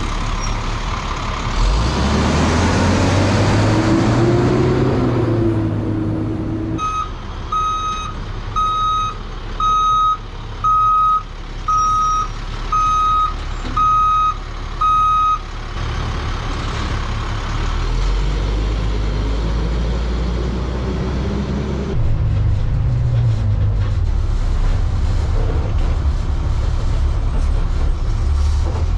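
2001 International armored SWAT truck with its diesel engine revving up. Then its backup alarm beeps about once a second, around eight times, over the engine. After that the engine runs on steadily and picks up again near the end.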